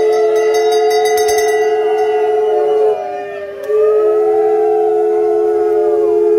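Conch shells (shankha) blown in long, steady held notes, at least two at slightly different pitches, dipping and breaking off briefly about three seconds in before sounding again. This is the ritual conch blowing at a puja. A brass hand bell rings rapidly through the first second and a half.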